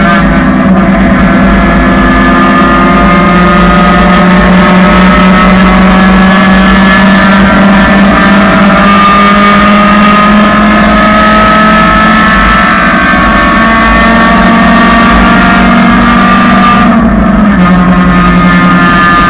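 A 1999 Honda Civic's four-cylinder engine pulling under load on track, its pitch climbing slowly and steadily through the gear, with a break and change in the engine note near the end as the driver shifts or lifts.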